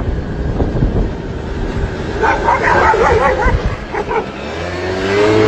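A car running with steady road noise, and a dog barking in a quick run of short, yelping barks from about two seconds in.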